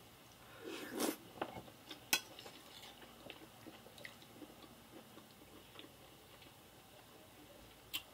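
Close-up eating sounds of macaroni goulash taken with a metal fork: a wet mouthful about a second in, a sharp click of the fork just after, then soft chewing and small clicks and scrapes of the fork on the plate, with another sharp click near the end.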